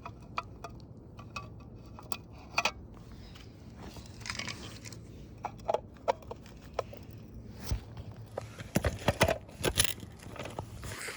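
Pieces of a broken alarm clock being handled and shifted, giving scattered clicks, crunches and rattles, with a quick run of louder knocks about nine seconds in.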